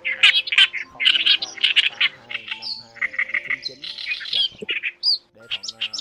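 Reed warbler song: loud, harsh chattering phrases of quickly repeated notes, with a buzzier stretch about three to four seconds in and a brief break near the end before it resumes.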